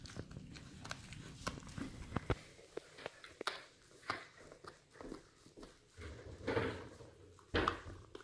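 Husky gnawing on a large bone chew: irregular sharp clicks and scrapes of teeth on bone, with two louder scuffling bursts near the end.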